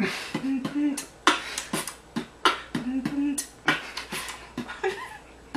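A beatboxer making mouth sound effects for a TV weather broadcast: quick percussive clicks and snare-like hits mixed with short hummed notes.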